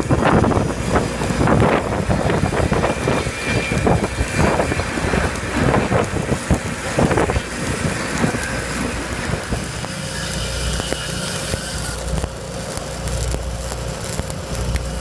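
Stick welding on a steel pipe joint: the arc crackling and hissing steadily, with wind gusting on the microphone over the first several seconds. From about ten seconds in a steady low drone comes up underneath, typical of the rig's engine-driven welding machine running.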